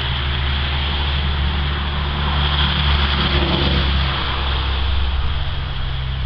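A motor running steadily, a low hum with a hiss over it.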